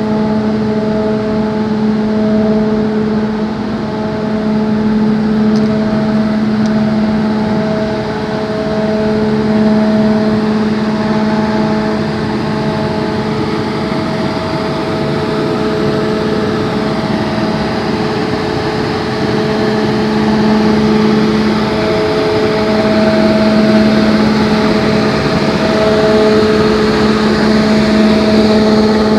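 Fluidized-bed grain dryer running: its air blower drones steadily, a constant hum over a loud rush of air.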